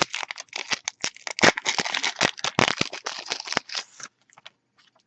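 A Yu-Gi-Oh! booster pack's foil wrapper being torn open and crinkled: a dense run of crackles for about four seconds, then a few faint ticks.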